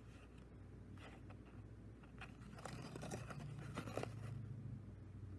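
Faint rustling and crackling of a cassette's folded paper J-card being unfolded and handled, with the sharpest crackles about three to four seconds in.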